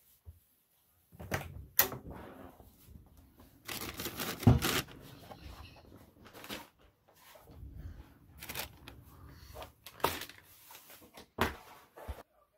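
Irregular clicks, knocks and rustles of someone walking and handling things, the loudest a sharp knock about four and a half seconds in.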